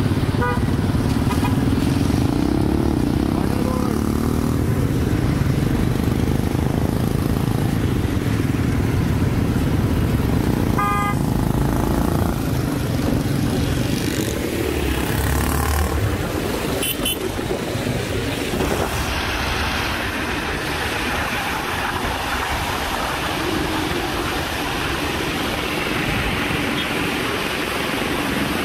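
Street traffic: a steady rumble of motorcycle and car engines and road noise, with short horn toots, the clearest about 11 seconds in and a higher-pitched one around 17 seconds in.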